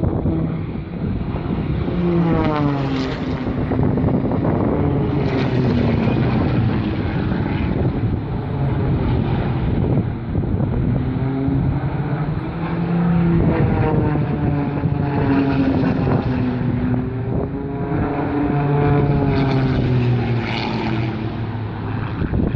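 Aerobatic race plane's six-cylinder Lycoming piston engine and propeller buzzing loudly as it flies past again and again through the course. On each pass the pitch slides down as the plane goes by.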